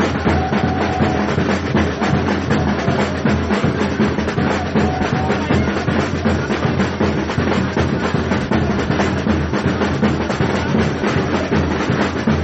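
Football supporters' samba bateria drum group playing a dense, steady samba beat on bass drums and snares.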